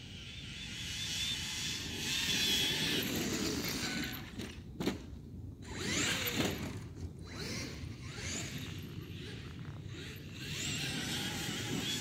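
Traxxas X-Maxx RC monster truck running on grass: its brushless electric motor and drivetrain whine, rising and falling in pitch with the throttle. A sharp click is heard about five seconds in.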